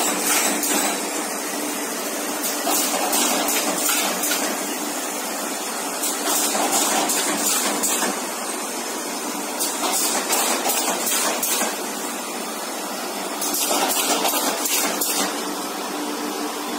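Automatic multi-cell partition assembling machine for corrugated cartons running: a steady mechanical hum with a constant tone, broken every few seconds by spells of clattering and hissing from its moving parts.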